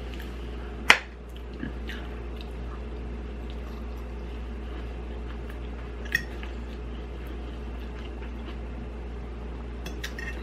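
Eating sounds: a metal fork clinking and scraping against a plate, with one sharp clink about a second in and another around six seconds, between soft wet chewing, over a steady low hum.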